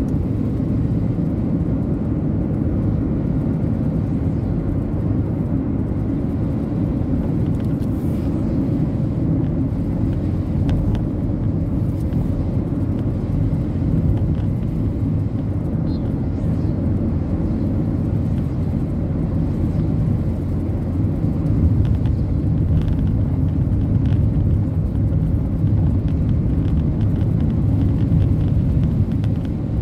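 Steady low rumble of a car driving on a rain-wet road, heard from inside the cabin.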